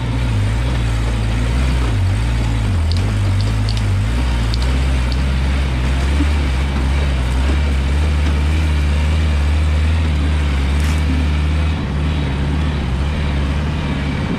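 Off-road buggy engine running steadily at low speed, its pitch dipping briefly a couple of times in the first few seconds.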